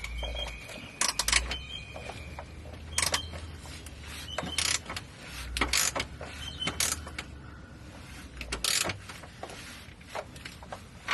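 Irregular metallic clicks and knocks of hand tools and bolts being worked while fitting a driveshaft safety loop under a car, about a dozen sharp strikes spread unevenly, with a faint steady high tone in the first couple of seconds.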